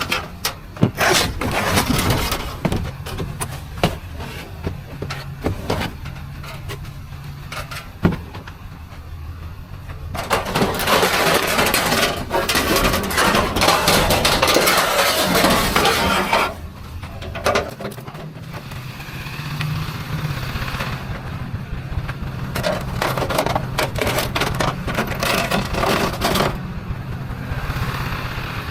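Scrap and junk being handled and rummaged through, with repeated knocks and clatter, over a steady low hum. A longer rushing noise runs through the middle.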